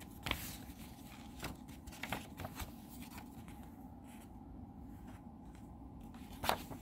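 Light clicks and rustles of a DVD case and its slide-out artwork being handled, with a sharper click near the end, over a faint steady background hum.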